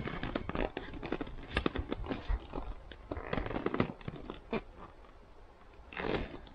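Handling noise on an inflatable PVC kayak: a quick string of small clicks, taps and rustles as straps and plastic mounting fittings are worked by hand, easing off after about four seconds, with a short rustle near the end.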